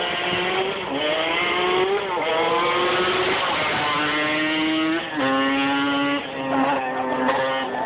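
Sport ATV engine at full throttle, accelerating up through the gears: its pitch climbs and drops back at each shift several times, then levels off and eases lower near the end.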